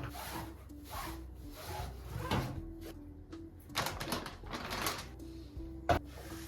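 Soft background music under household handling noises: several swishing strokes, light clicks, and a sharp knock near the end.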